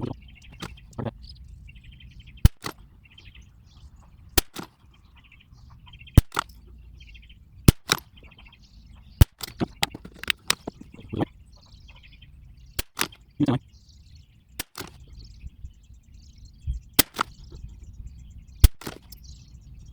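Anschutz 1761 .22 LR bolt-action rifle firing, with short, sharp cracks a second or more apart mixed with clicks of the bolt being worked. Birds chirp faintly between them.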